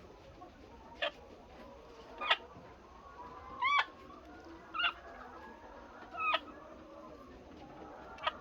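Laying hens in a poultry house: one hen gives six short, sharp calls at roughly even intervals over the steady chatter of the flock.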